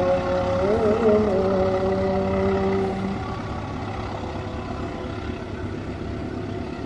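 Heavy diesel engine running, its pitch wobbling up and back about a second in, then fading away about three seconds in and leaving a lower steady rumble.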